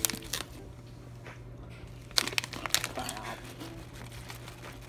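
Plastic snack bag crinkling and crackling as corn-nut snack pieces are shaken out of it, with a burst of crinkles about two seconds in.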